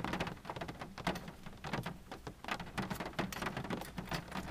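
Rain falling on a car's roof and windows, heard from inside the cabin as a dense, irregular run of small taps.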